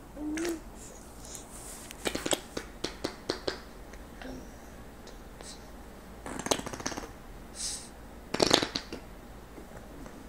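An eight-month-old baby blowing raspberries, making fart noises with wet, sputtering lips. A run of short spluttery pops comes about two seconds in, and longer raspberries follow around six and a half and eight and a half seconds. A brief baby coo is heard at the start.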